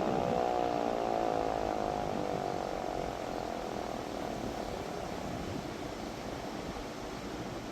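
Federal Signal Model 2 electromechanical siren winding down after being brought up to full: its wail falls steadily in pitch and fades over the first few seconds, trailing off into a low rumble and hiss.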